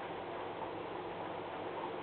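Steady low background hiss with a faint hum underneath: room tone, with no distinct events.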